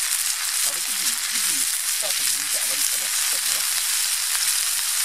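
Chopped peppers, onion, baby corn and chorizo frying in a pan on campfire embers: a steady, dense sizzle.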